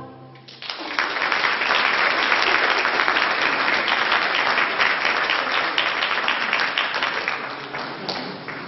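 Concert audience applauding after a choir piece, breaking out about half a second in as the last sung chord dies away, then slowly thinning toward the end.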